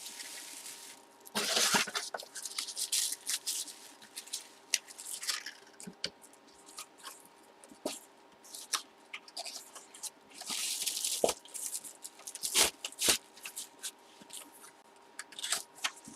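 Handling sounds: crinkly rustling of plastic packaging in a few bursts, the loudest about a second and a half in and again about ten seconds in, with scattered small clicks and taps between them.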